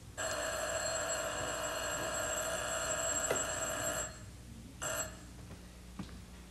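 Telephone bell ringing: one long ring of about four seconds, then a brief second ring that breaks off about a second later.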